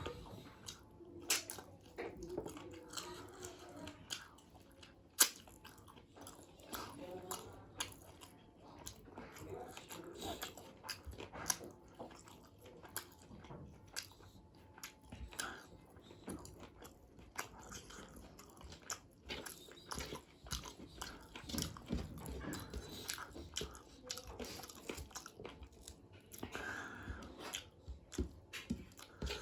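Close-up chewing of chicken biryani: irregular wet mouth smacks and clicks with occasional crunches, the sounds of an eating-ASMR bite.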